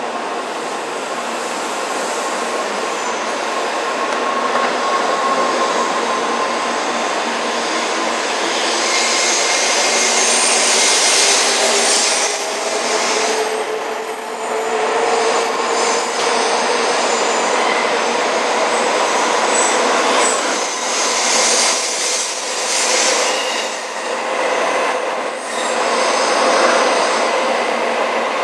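N700-series Shinkansen train pulling out of the platform and gathering speed. Its traction motors give a whine that slowly rises in pitch over the steady rush and rumble of the passing cars, with some sharper clacks from the wheels now and then.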